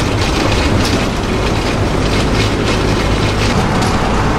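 Cabin noise of a van driving on the road: a steady rumble of engine and tyres, with frequent rattling from the interior fittings.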